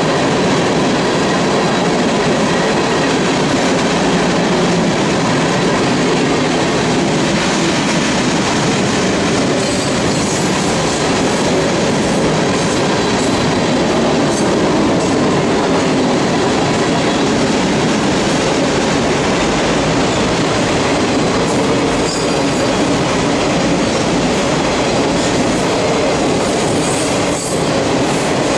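Mixed freight train rolling past: a steady loud rumble and clatter of steel wheels on the rail as tank cars, covered hoppers and autoracks go by.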